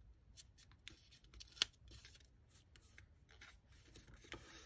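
Faint crinkling and rubbing of a square of origami paper being folded by hand, fingers pressing and sliding along the crease, with one sharp tick about a second and a half in.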